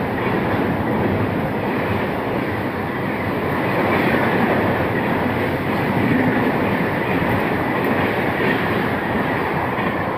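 Rajdhani Express LHB passenger coaches rushing past at speed, with a steady loud rolling noise of wheels on rail.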